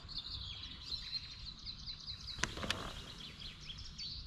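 A small songbird singing outdoors, a rapid run of short, high chirps repeated over and over, over a steady low rumble. Two sharp clicks come about halfway through.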